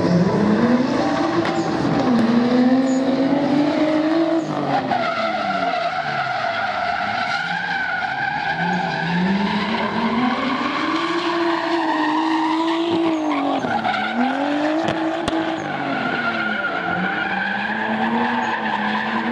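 Drift car's engine revving hard, its pitch climbing and dropping several times as the throttle is worked through the slides, with tyres screeching as the car drifts.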